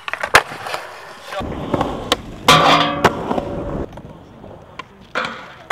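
Skateboard tricks: sharp tail pops and board landings click and slap, with urethane wheels rolling on concrete in between.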